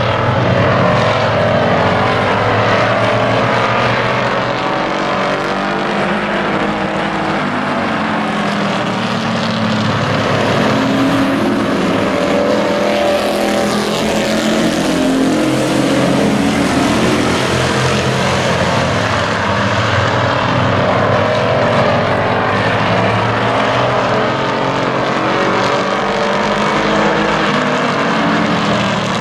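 A pack of hobby-class racing pickup trucks with their engines running hard as they lap an oval. Several engine notes overlap, each rising and falling in pitch as the trucks accelerate and pass.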